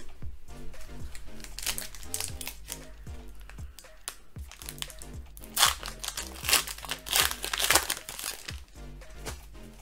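Foil Pokémon booster-pack wrapper crinkling as it is handled and torn open, in several sharp bursts that are loudest in the second half, over background music with a steady beat.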